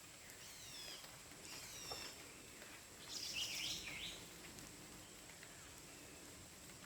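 Faint bird calls in the woods: two short runs of falling chirps, then a louder warbling call about three seconds in, over a steady background hiss with a thin high steady tone.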